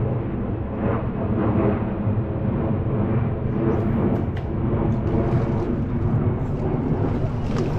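Airplane flying overhead: a steady, loud low drone of engine noise with a faint hum of even engine tones.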